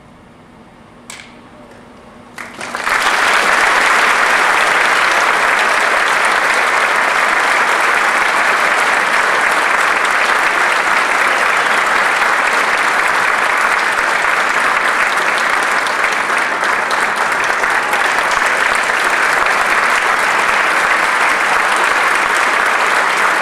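Audience applause, breaking out about three seconds in and continuing steadily after a short quiet start.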